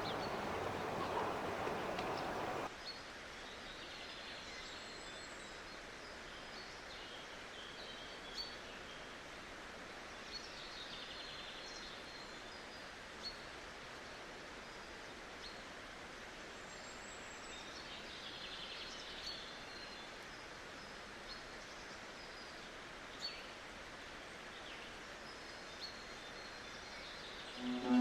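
Quiet outdoor ambience: a steady faint hiss with scattered faint bird chirps and a few light ticks. A louder steady noise cuts off suddenly about three seconds in.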